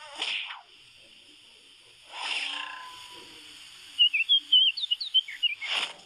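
Cartoon sound effects: two quick whooshes, then, about four seconds in, a loud run of high, rapid chirping twitters, ended by another whoosh.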